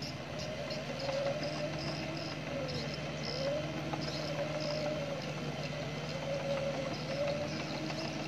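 Bobcat E45 mini excavator's diesel engine running steadily, with a whine that slowly rises and falls as the machine works.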